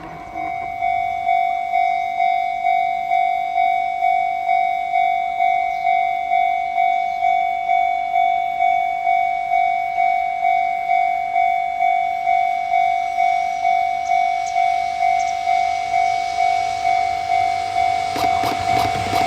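Japanese level crossing warning alarm ringing: a single electronic tone struck over and over, about one and a half times a second, each stroke fading before the next. Near the end the rumble of an approaching train rises under it.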